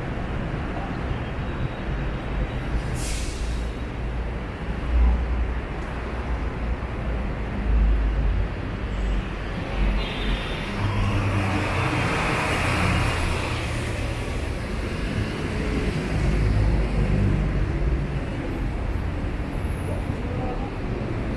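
City street traffic: the low, steady running of buses and cars, with a short hiss about three seconds in and a vehicle passing close in the middle.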